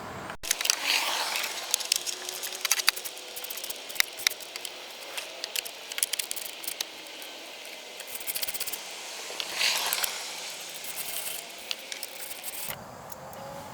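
Ratchet wrench with a 7mm socket clicking in short irregular runs, with small metallic rattles, as screws are backed out.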